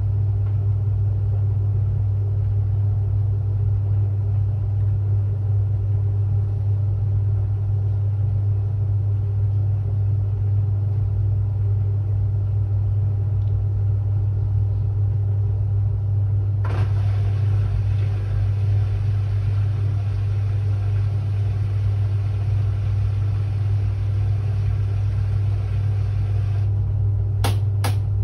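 Front-loading washing machine running near the end of a Quick 30 cycle with a steady, loud low hum. A hissier layer joins from about halfway through and stops shortly before the end. Two sharp clicks follow.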